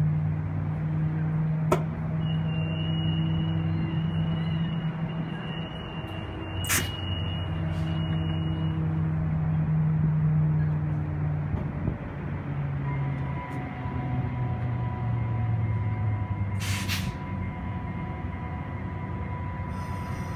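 Commuter train standing at the platform with a steady low hum from its locomotive. A steady high-pitched tone sounds for several seconds early on. A couple of clicks and, near the end, a brief hiss of air are heard over the hum.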